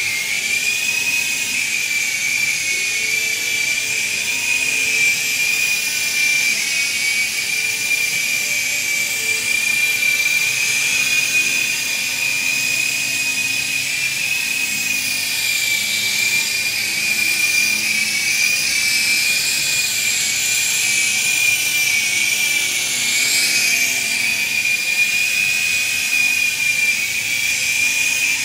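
Small electric motor and rotors of an S113G remote-control helicopter running in flight: a steady, high-pitched whine with a rushing whir over it. The whir changes in tone between about 15 and 24 seconds in as the helicopter moves about.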